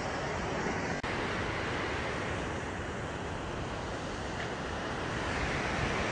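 Steady rushing of a fast, rocky mountain stream running over boulders in white water.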